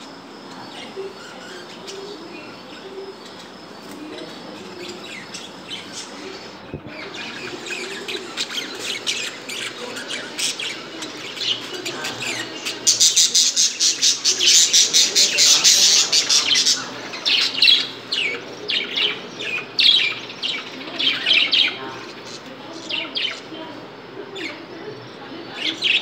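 A flock of caged budgerigars chirping and chattering, sparse and quiet at first, then denser and louder, with a run of fast, overlapping chirps about halfway through.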